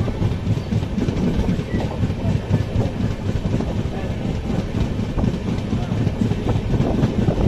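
Brindavan Express passenger train running along the track: a steady rumble with a constant stream of knocks and rattles from the coach.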